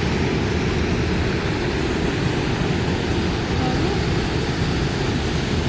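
Waterfall on the Big Sioux River: water pouring over rock ledges, a steady rushing noise that does not change.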